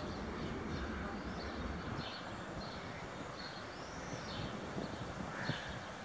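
Outdoor background: birds chirping now and then over a steady low rumble.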